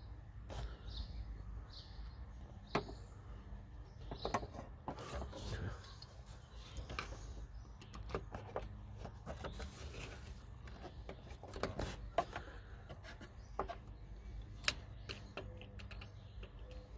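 Hand screwdriver driving a Torx screw into a car's steel door frame: scattered light clicks and scrapes as the screw is turned and seated.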